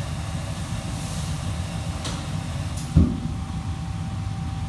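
Steady low rumble of a commercial kitchen's gas wok burners and extractor hood running, with a couple of light clicks and a single low thump about three seconds in.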